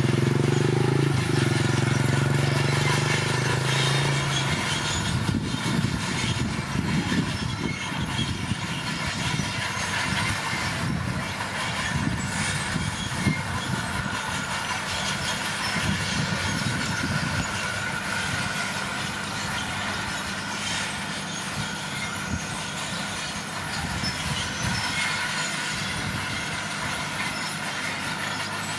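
Komatsu D41P crawler dozer at work. Its diesel engine hums steadily for the first few seconds, and then a dense, irregular clatter of the steel tracks and undercarriage takes over as it moves.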